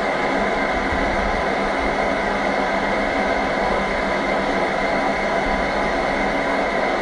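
A steady, even rushing noise at constant loudness that does not change at all, with no distinct events in it.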